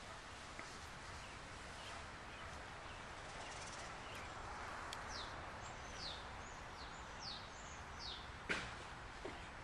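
Outdoor background hiss with a small bird chirping a quick series of about five short, high, falling notes in the second half. A single sharp click near the end is the loudest sound.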